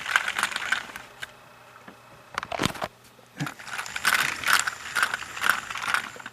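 Plastic Trackmaster toy train cars being handled, clicking and rattling in two spells of quick clicks with a lull between.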